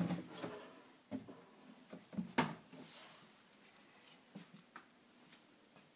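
A few light knocks and clicks from a wooden kitchen cabinet with a lazy Susan being handled. The sharpest click comes about two and a half seconds in.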